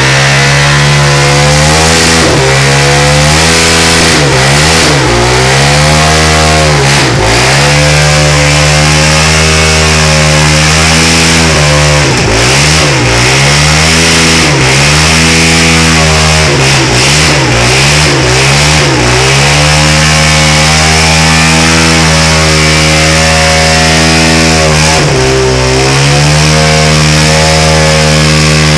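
Dirt bike engine held at high revs for a burnout, very loud. The revs drop briefly and climb back several times.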